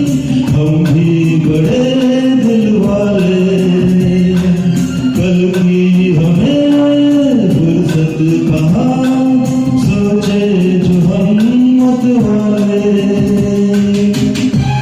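Music: a Bollywood song sung by a male singer over an instrumental backing track, the sung melody gliding continuously.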